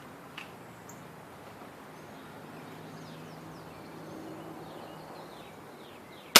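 Quiet outdoor background with a low steady hum and a few faint, short, falling bird chirps. Right at the end comes a single sharp, loud crack from a 980 fps pellet gun being fired.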